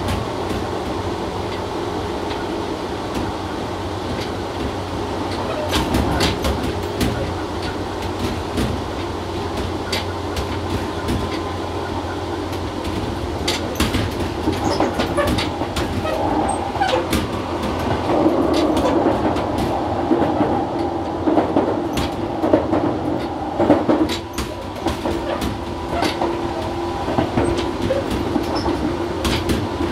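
Tobu 6050 series electric railcar running at speed, heard from the driver's cab: wheels clicking irregularly over rail joints, over a steady hum from its resistance-controlled TM-63B traction motors and gearing, which grows stronger about halfway through.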